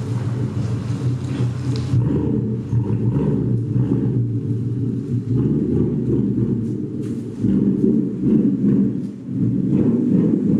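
Ford Mustang GT's 5.0 Coyote V8 running with its mufflers deleted and resonators still in place: a steady, deep exhaust rumble.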